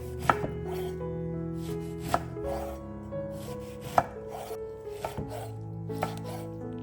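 A knife chopping on a cutting board: sharp knocks about every two seconds with softer cutting strokes between. Background music with sustained notes plays underneath.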